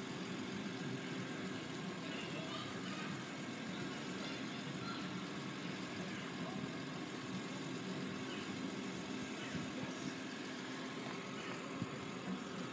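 An engine idling steadily with an even, unbroken hum.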